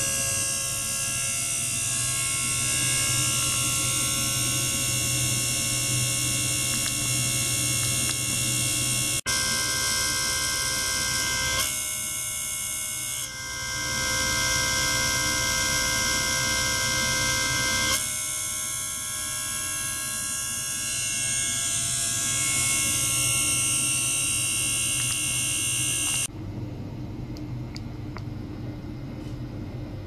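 Ultrasonic tank running: a loud, steady buzzing hiss from the water with many steady high tones, the hiss of cavitation as bubbles form in the liquid. The sound shifts abruptly several times. About 26 seconds in the high hiss cuts off, leaving a quieter, duller hum.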